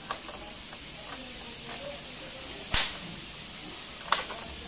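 Sharp metal-on-metal clicks as an L-connector bracket is worked into the corner of an aluminium office-partition frame with pliers: a small click at the start, then two loud clicks, one near the middle and one about four seconds in.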